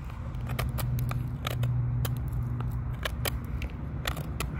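A folding knife's blade carving a wooden stick to a point, each stroke biting into the wood with a sharp click or snap, in a quick irregular series. A low steady hum runs underneath.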